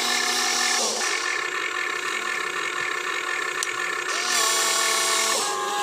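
Huina 1592 RC excavator's small electric motors and plastic gearboxes whining steadily as the boom and bucket work. A second, lower whine cuts in during the first second and again for about a second near the end as another motor runs.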